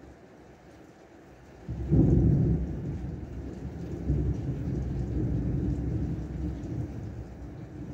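Thunder cracking in suddenly about two seconds in, then rolling on as a low rumble that slowly fades, over the steady hiss of heavy rain.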